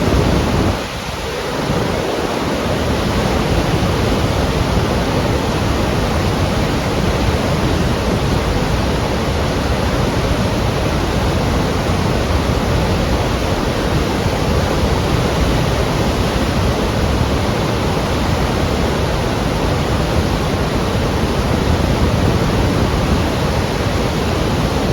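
Waterfall: a steady, loud rush of falling water, dipping briefly about a second in and then running on evenly.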